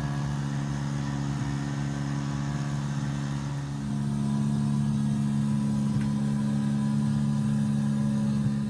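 An engine runs with a steady low hum, its note shifting slightly and getting a little louder about three and a half seconds in.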